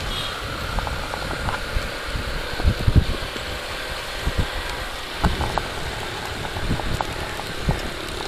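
Yamaha YBR 125 motorcycle riding along at an easy pace, its single-cylinder four-stroke engine running steadily, with wind buffeting the camera's microphone in irregular low thumps.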